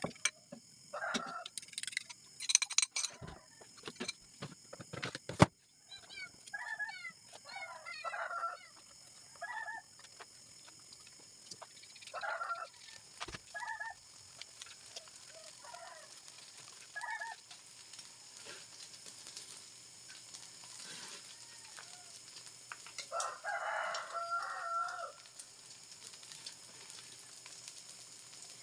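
Chickens clucking and a rooster crowing, the calls coming in short scattered groups with a longer, louder call late on. A few sharp clanks of kitchen utensils sound in the first few seconds.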